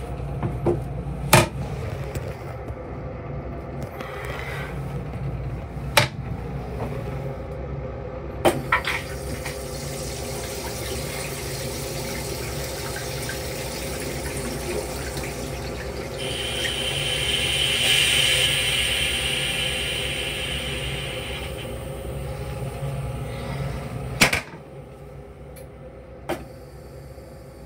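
Train-car toilet flushing: a click, then water rushing and hissing for about sixteen seconds, loudest in the middle, ending abruptly with a clunk. A low, steady rumble of the railcar runs underneath, with a few sharp clicks before the flush.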